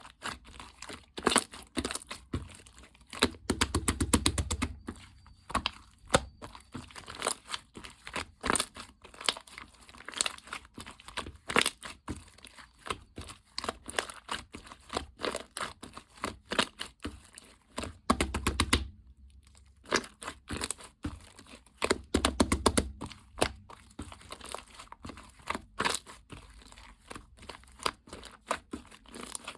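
Slime being squished, pressed and tapped by hand: dense runs of sharp crackling, popping clicks, with a few dull thumps and one brief pause past the middle.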